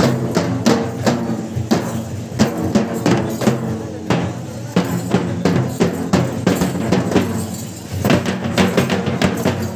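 Kerala temple-festival drumming for Thira and Poothan performers: hand-beaten drums striking a fast, uneven rhythm, with a steady pitched sound underneath. The drumming eases briefly near the end, then picks up again.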